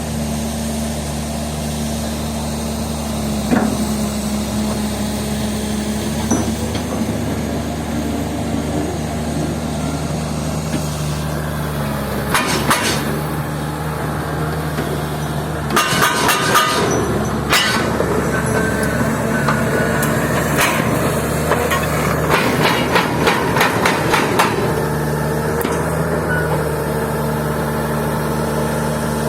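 Komatsu PC200-6 excavator's turbocharged six-cylinder S6D105 diesel running steadily, with bursts of sharp metallic clanks and knocks through the middle stretch.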